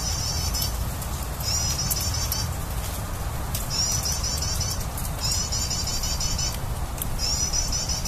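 Prenjak (bar-winged prinia) song: a rapid, high phrase of quickly repeated notes about a second long, given about five times with short gaps, over a steady low rumble.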